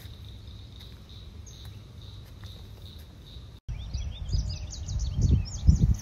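Low wind rumble with a steady high-pitched drone. A little over halfway through, a sudden cut to birds singing in quick, rapid chirps, with gusts of wind buffeting the microphone, loudest near the end.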